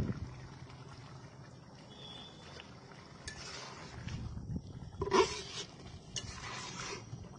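Metal ladle stirring thick egg curry in a large aluminium pot, in a few separate scraping strokes, the loudest about five seconds in.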